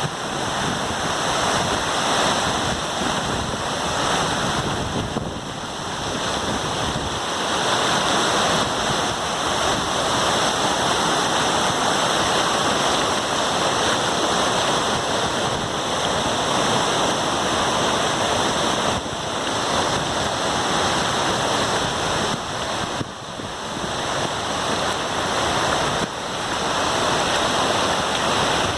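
A waterfall on a river: water falling and rushing in a steady, loud, dense wash of noise, dipping briefly twice.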